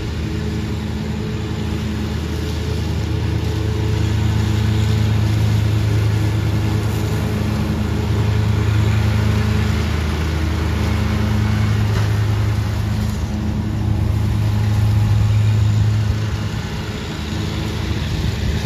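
Towed Cyclone Rake leaf vacuum and the lawn tractor pulling it, engines running steadily with a whooshing rush as leaves are sucked up through the intake hose. The drone dips briefly near the end.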